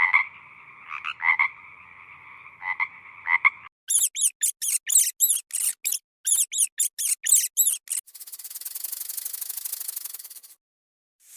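Animal calls in three parts: repeated frog-like croaking for the first few seconds, then a run of fast, very high squeaks at about five a second, then a steady buzzing rattle that stops suddenly.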